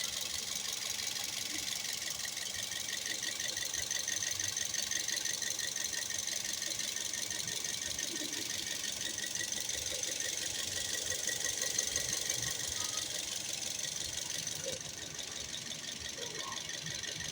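Toyota 1NZ-FE 1.5-litre four-cylinder engine running with a fast, steady metallic rattle, the knocking and rattling noise the owner complains of. It gets a little quieter about fifteen seconds in.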